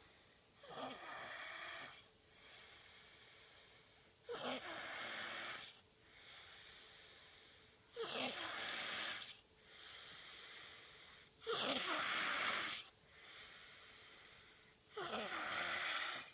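A person snoring: five loud, noisy snores about every three and a half seconds, each lasting just over a second, with quieter breathing between them.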